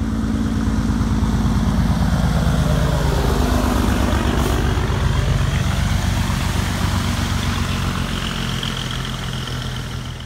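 Heavy diesel semi-truck running as it drives past pulling a loaded lowboy trailer. The engine note dips about four seconds in.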